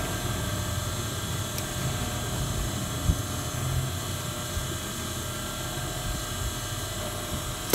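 Steady low mechanical hum of a running motor, with a few faint snips of tailor's shears cutting into fabric.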